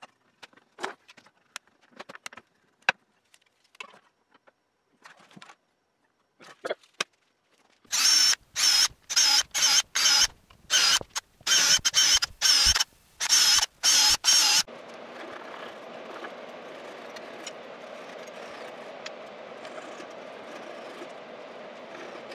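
A handheld drill boring pin holes into a hardwood chair frame in about a dozen short, loud pulses of the trigger, each with a high whine, after a few light clicks and knocks of bar clamps being handled. About two-thirds of the way through, a steady hum takes over.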